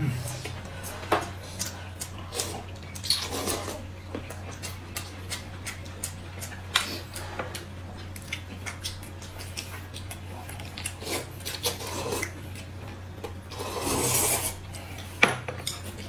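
Close-up eating sounds: chopsticks and a spoon clicking and scraping against a paper noodle cup, plates and a glass cup, with noodle slurping and chewing, and a longer slurp near the end. A steady low hum runs underneath.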